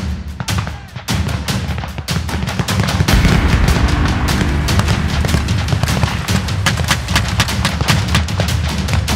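Background music with a steady low pulse, mixed with rapid gunfire from a WWII battle reenactment. The shots come thicker and louder from about three seconds in.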